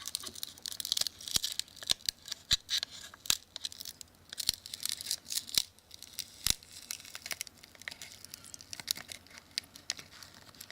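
Samsung Galaxy S2 screen being pried and lifted off the phone's frame: irregular crackling and small sharp snaps as the adhesive holding it tears away.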